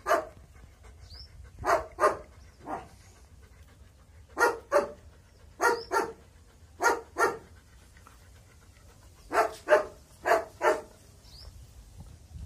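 German Shepherd barking in short, sharp barks, mostly in pairs, with pauses of a second or two between the pairs.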